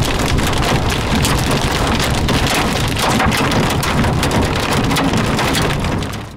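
Rain pattering on a moving car's windshield and roof, dense fine ticks of drops over the low rumble of the car on a wet road, fading out near the end.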